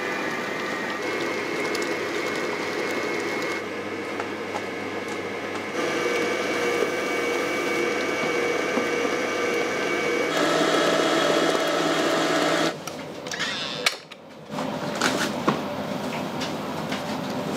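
A small machine motor running with a steady whir. Its sound changes abruptly several times, with a brief drop about fourteen seconds in.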